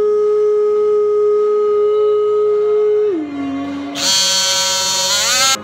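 Background music: a song with long held notes, likely sung 'ooh's. The first note drops lower about three seconds in, then a brighter, fuller note comes in about a second later and slides up just before it cuts off.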